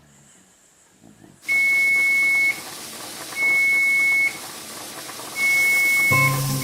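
Three long electronic beeps, each lasting about a second and coming about two seconds apart, over a steady hiss. Music comes in near the end.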